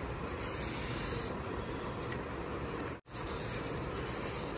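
A cloth rag rubbing over a wood veneer panel, wiping off excess wet walnut wood stain. The sound cuts out for an instant about three seconds in.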